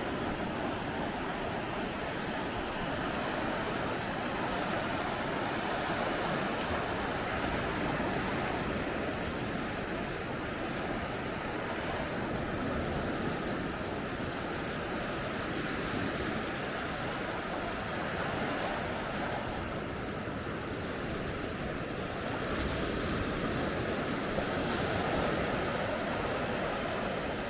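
Sea surf washing onto a beach: a steady rush of waves that swells and eases every few seconds.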